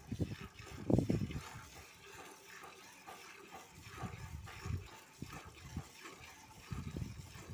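Water buffalo being milked by hand: quick, even squirts of milk hitting the milk in a steel bucket, about two to three a second. A low thud about a second in is the loudest sound.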